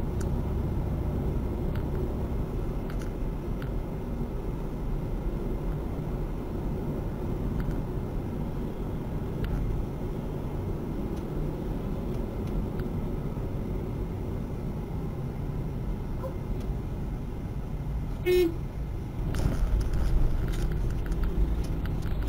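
Steady low rumble of a car's engine and road noise as picked up by a dashcam while driving, with one short car horn toot late on.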